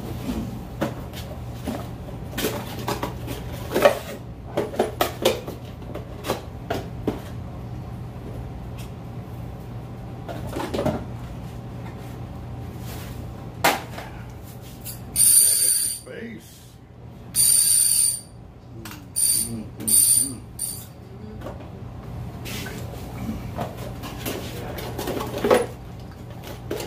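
Fishing reel boxes and plastic packaging being handled on a shop counter: scattered knocks, clicks and rustles, over a steady low hum. About halfway through comes a run of several short, harsh hissing bursts, the loudest sounds here.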